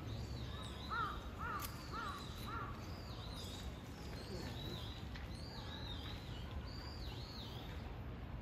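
A crow cawing four times in quick succession about a second in, over high chirping calls that repeat every second or so.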